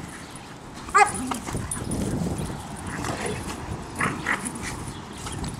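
Two dogs at rough play, one barking: a single sharp bark about a second in, then a couple of shorter barks around four seconds in.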